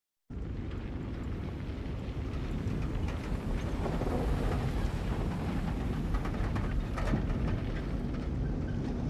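Low, steady rumbling noise that cuts in abruptly and slowly grows louder, with no clear pitch.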